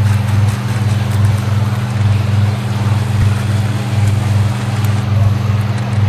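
Experimental music built from dishwasher sounds: steady low generated tones that pulse with a slow beat about once a second, over an even rushing noise.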